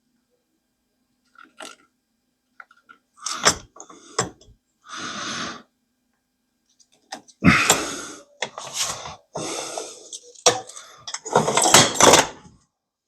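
Hands handling tools and lock hardware at close range: scattered clicks, knocks, scrapes and rustles, busiest in the second half.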